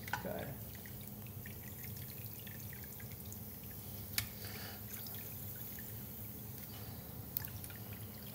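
Hot frying oil dripping and trickling over a dried pork rind held in tweezers, with faint sizzling and many small crackles as the rind puffs up, and a few sharper clicks.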